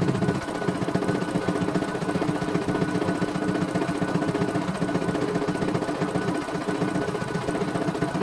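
CNY E900 computerized embroidery machine stitching a design: a rapid, steady chatter of needle strokes as the hoop carriage steps the fabric under the needle.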